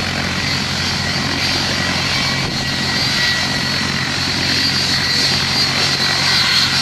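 Jet engines of a twin-engine Boeing 757 airliner running at low taxi power as it turns onto the runway: a steady high-pitched whine over a low rumble, growing slightly louder near the end.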